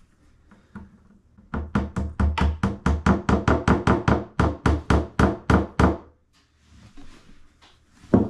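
Claw hammer tapping wooden dowel pegs into the peg holes of an Ikea Kallax shelf board: a quick, even run of about twenty strikes, some five a second, lasting about four seconds. A single sharp knock comes near the end.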